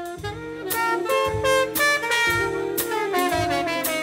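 Jazz background music: a horn melody of short separate notes over a steady drum beat.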